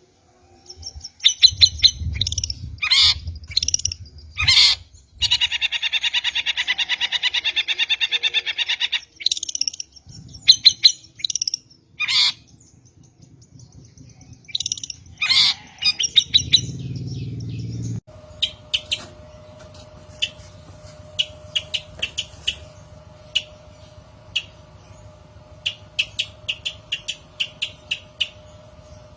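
Long-tailed shrike (cendet) calling: loud sharp harsh calls and a fast chattering rattle lasting about four seconds. About two-thirds in, the sound switches abruptly to quieter rapid ticking chirps over a steady hum.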